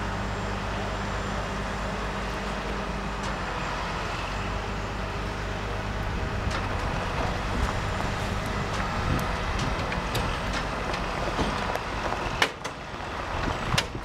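Heavy wrecker's diesel engine running steadily during the recovery of an overturned truck, its low hum changing about nine seconds in. A few sharp knocks sound over it, the loudest about twelve seconds in.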